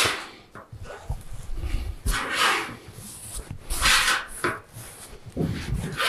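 A hand tool scraping and pressing against painted sheet steel in several separate strokes, as a folded corner of standing-seam roof flashing is worked closed.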